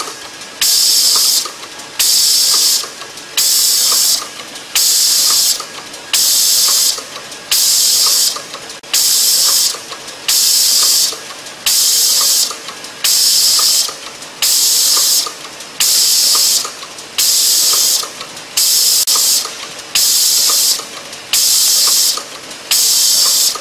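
Eyedrop bottle filling and capping machine running in a steady cycle: a burst of compressed-air hiss comes roughly every second and a half, each lasting under a second, with light mechanical clicking between.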